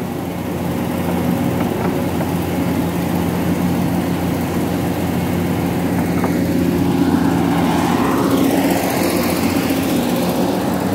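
Heavy diesel engine running at a steady speed, with a whine that rises and falls in pitch about seven to nine seconds in.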